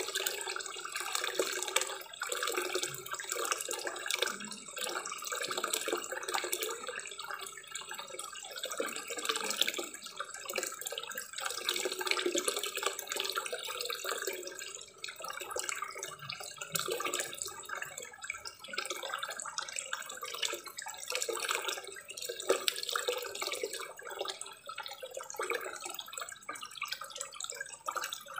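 Small garden waterfall spilling from a spout into a koi pond: a steady, uneven splashing and trickling of falling water.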